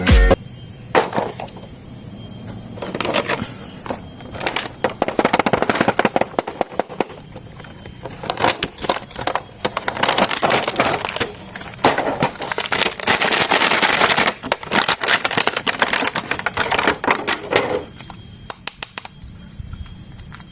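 Plastic toy packaging crackling, with irregular clicks and rattles as an action figure is unboxed and handled. It comes in patches, busiest for a few seconds in the middle, over a faint steady high whine.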